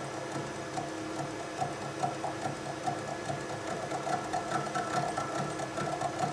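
Sheldon Vernon horizontal milling machine running, its spindle and cutter arbor turning with a steady mechanical hum and an even, rapid ticking several times a second.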